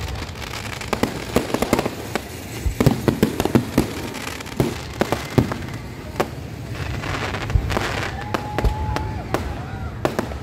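Aerial fireworks display: a rapid, continuous run of shell bursts, bangs and crackling stars, several reports a second.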